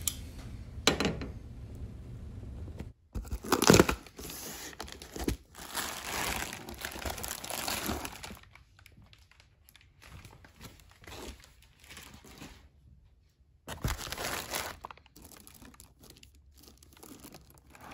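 Cardboard shipping box being opened and its plastic packing handled: bubble wrap and a plastic bag crinkling and rustling in irregular bursts, the loudest about four seconds in, quieter and more sporadic in the second half.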